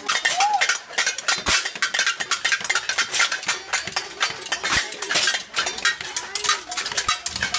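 Several people banging metal pots, frying pans and pot lids with ladles and spoons: a rapid, continuous metallic clattering and clanging made as a wake-up noise.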